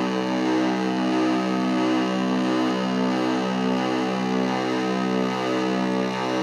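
Casper Electronics Nova Drone analog drone synthesizer sounding a sustained, buzzy drone chord that throbs evenly, about one and a half pulses a second.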